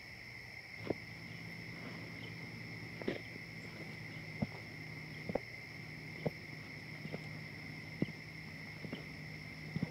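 Footsteps on pavement, single sharp steps about once a second, over a steady chorus of crickets and other insects and a low steady hum.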